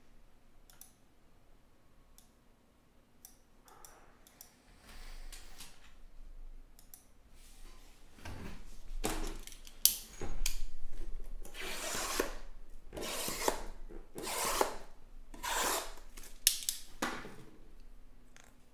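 Packaging being handled: about eight seconds in, a run of short scraping, rustling swishes begins, each about half a second to a second long, with a couple of sharp clicks among them.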